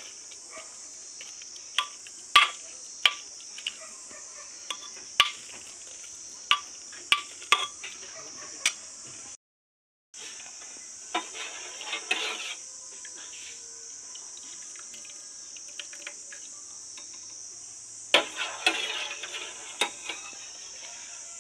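Steel spoon stirring thick cooked dal in a pressure cooker, clinking sharply against the metal pot about a dozen times. After a cut, a steel ladle stirs and scrapes through thin liquid dal in a steel pot in two short spells. A steady high hiss runs underneath throughout.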